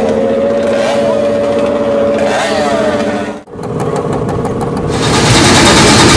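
Volvo 122 wagon race car's engine idling steadily. After an abrupt break about three and a half seconds in, a louder, rougher engine sound rises.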